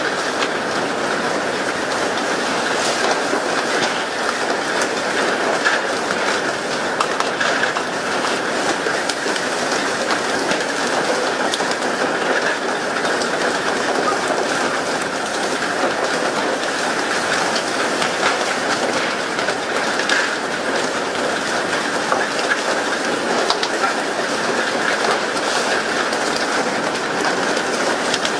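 Steady rush of water from the boat's spray jets and wake along the hull of a moving fishing boat, with scattered faint clicks and knocks.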